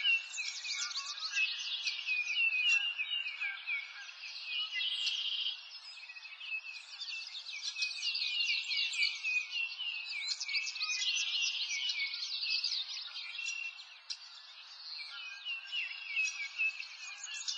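A chorus of songbirds chirping and trilling: many quick, high notes, often sweeping downward, overlapping without pause.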